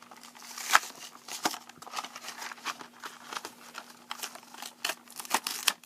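Plastic blister packaging and cardboard backing card crinkling and crackling as they are pried and torn apart, with irregular sharp clicks and snaps.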